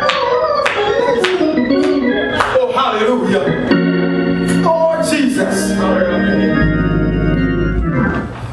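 Organ music playing chords and quick runs, with sharp percussive hits recurring through it and a held low chord in the second half.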